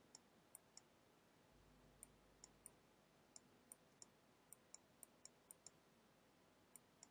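Faint computer mouse clicks, about seventeen short clicks at irregular intervals, each one a small brush stroke being laid down, over near-silent room tone.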